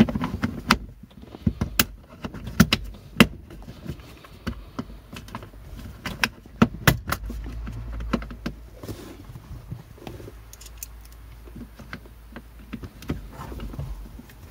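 Plastic trim cover being handled and fitted back into place: irregular sharp clicks and knocks of plastic parts. A low hum comes in about halfway through.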